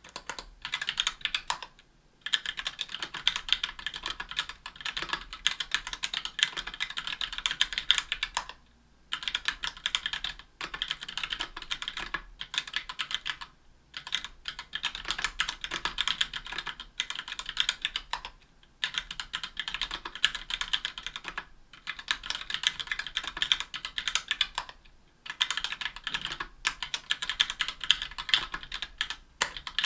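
Steady typing on a 60% aluminium keyboard with Gateron Black Ink linear switches and GMK keycaps: fast runs of key strokes bottoming out, broken by brief pauses every few seconds.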